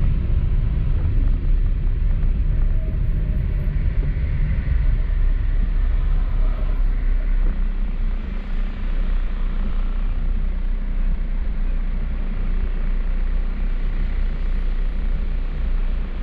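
Car driving on a rain-wet road: steady road and engine noise with a heavy low rumble.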